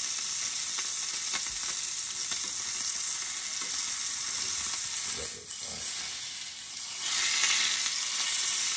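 Chuck roast searing in hot oil in a cast-iron skillet, a steady sizzle. A little past halfway the roast is turned over with tongs: the sizzle dips briefly, then comes back louder as the unseared side meets the pan.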